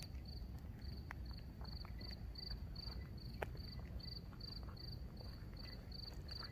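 A cricket chirping steadily, a short high trilled chirp about two and a half times a second, over a low steady rumble.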